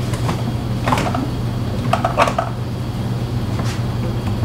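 A few light clicks and knocks of kitchen containers being handled and set down on a counter: one about a second in, a short cluster near the middle, a fainter one near the end, over a steady low hum.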